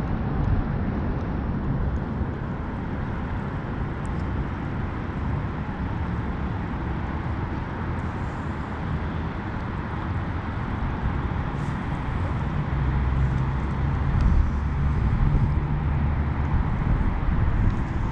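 Wind rumbling and buffeting on the microphone, in gusts that grow stronger about two-thirds of the way through.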